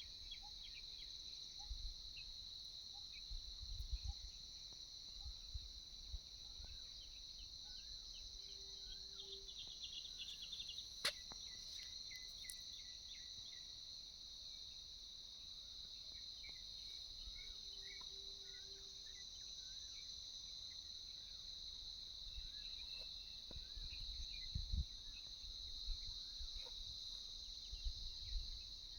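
Steady, high-pitched chorus of insects such as crickets, with faint scattered chirps and occasional low rumbles. A single sharp click sounds about eleven seconds in.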